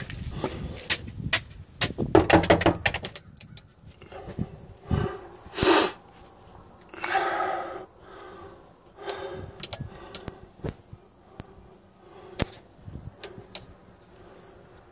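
Handling noise of a phone being carried, with a quick run of clicks and knocks at first, a sharp swish about six seconds in, a longer rustle just after, then scattered knocks.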